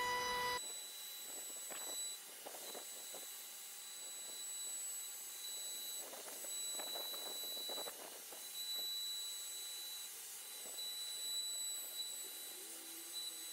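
Trim router whining, then switched off about half a second in. After that come faint handling sounds, scattered light knocks and rubs of the tool against the MDF board and timber frame, with a faint high tone coming and going.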